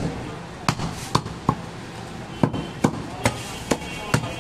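Heavy butcher's cleaver chopping through goat ribs on a wooden chopping block: about nine sharp strikes at an uneven pace.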